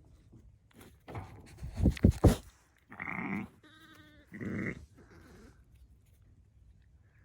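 Sheep bleating, three short calls about three to five seconds in, one of them with a wavering pitch. Before them, around two seconds in, come a few loud low thumps, the loudest sound here.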